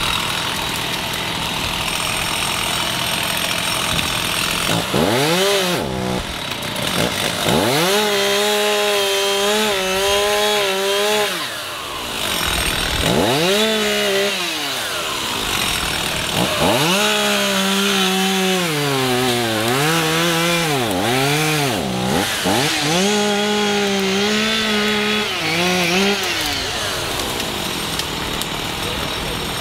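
Chainsaw idling, then revved up to high speed about five times, each for a few seconds, while cutting through the limbs of a fallen tree.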